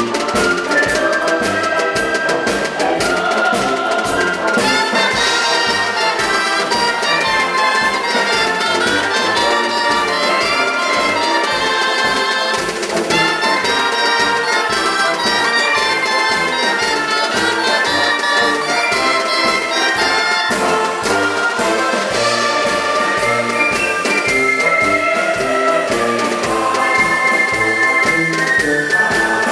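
Live music from a txistu band (Basque three-hole pipes) playing with a wind band of clarinets, brass including a tuba, and drum kit, in a steady melodic march-like tune.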